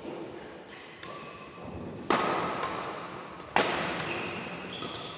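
Badminton rackets striking the shuttlecock hard twice, about a second and a half apart, each sharp crack ringing on in the echo of a large hall.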